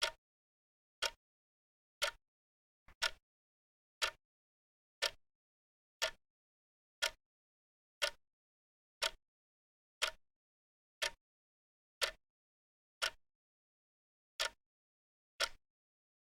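Clock ticking, one sharp tick about every second, with dead silence between ticks.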